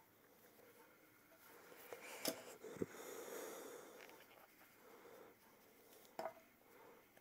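Faint rustling of a crocheted plush toy being handled and worked with a needle, with a few small sharp clicks: two close together in the middle and one near the end.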